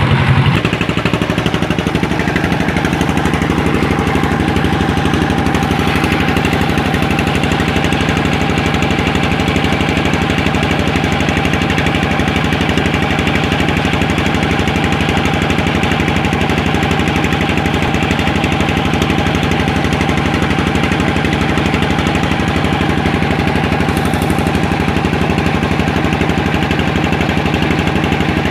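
Small engine running steadily at a constant speed, with an even, rapid knocking beat.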